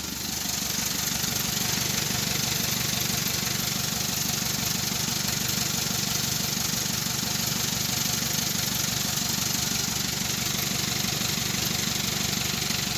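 Car engine idling steadily, left running while the alternator's charging output is checked and found good.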